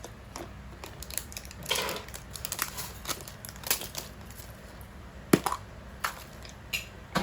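Plastic toy surprise-egg packaging crackling and crinkling as it is torn and pulled open by hand, in a series of sharp crackles and clicks with one sharper snap a little after five seconds.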